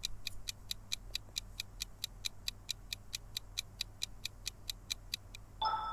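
Quiz countdown timer sound effect ticking evenly, about five ticks a second, while the answer time runs out. The ticking stops near the end and a short electronic chime sounds, signalling that time is up.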